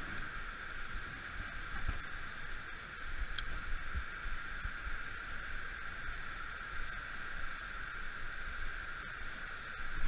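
Steady rushing of river current, with a few low knocks from handling the rod and spinning reel.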